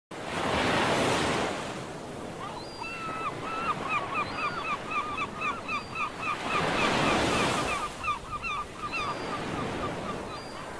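Sea waves breaking on a beach, swelling up twice, about a second in and again near seven seconds. Over them a gull calls in a long run of quick, repeated notes, about three a second, from about three seconds in until near the end.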